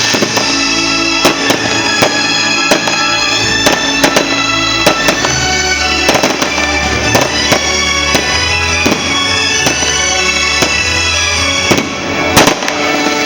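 Loud music with held chords and a bass line, over which fireworks crack and bang at irregular intervals. A cluster of louder bangs comes near the end.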